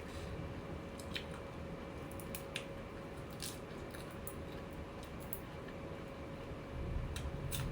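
A person chewing a mouthful of beef laab with tripe: scattered wet mouth clicks and smacks, over a faint steady hum.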